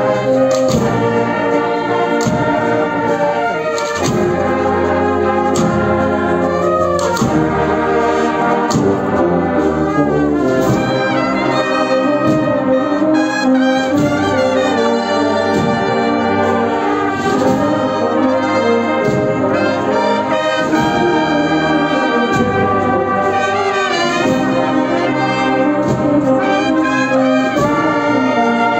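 Brass marching band playing a processional march: trumpets and trombones carry the melody and chords over steady drum strokes.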